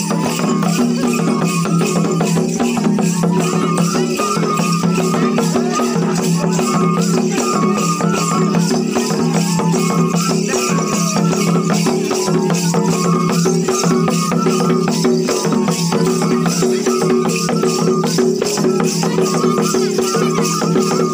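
Live folk music played on the move: a side-blown bamboo flute repeating a short melody over a steady low drone, with a hand-shaken rattle keeping a fast, even beat.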